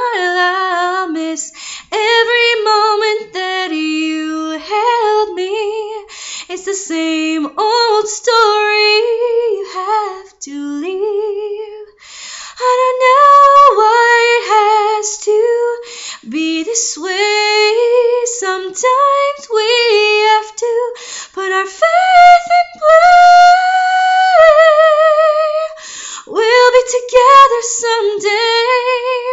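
A woman singing unaccompanied, a cappella, in melodic phrases with vibrato, holding one long wavering note about two thirds of the way through.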